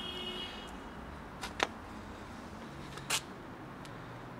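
Two short, sharp clicks about a second and a half apart over steady low background noise.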